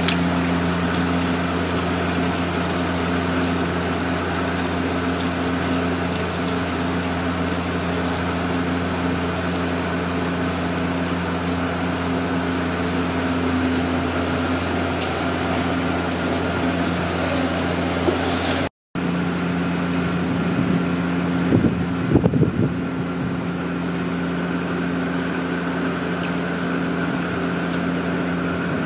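A motor running steadily, a low hum with a few constant tones over a wash of noise. A few brief low bumps come about three-quarters of the way through.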